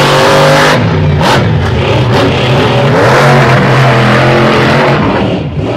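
Monster truck engine at full throttle as the truck drag-races down the track. It is a loud, steady drone with little change in pitch, and it falls away just before the end.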